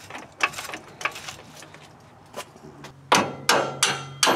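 Sharp metal-on-metal knocks from work on a motorhome's steel front suspension while the shock absorber is fitted: a few light clicks, then four loud ringing knocks in quick succession in the last second and a half.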